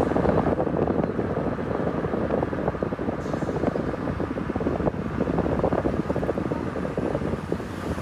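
Wind noise rushing and fluttering over the microphone of a moving car, mixed with road noise.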